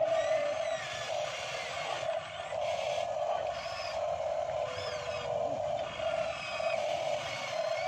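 Scale RC hydraulic excavators' pump motors running with a steady buzzing whine, with brief higher whines that rise and fall as the boom and bucket move.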